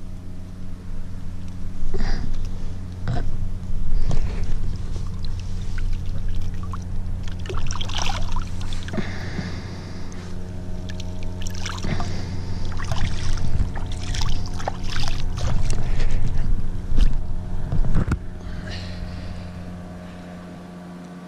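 A wire-mesh fishing keepnet handled in shallow water, with irregular splashes and clinks that stop a couple of seconds before the end. Under it runs a steady low motor hum.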